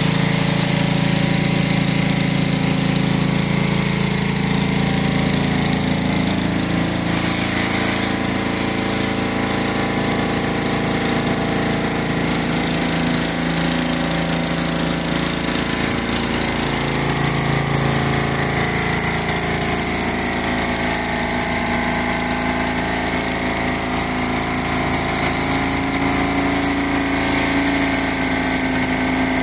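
Gas-engine pressure washer running steadily under load, with the hiss of water spraying onto the pavement; the engine's pitch shifts slightly a few times.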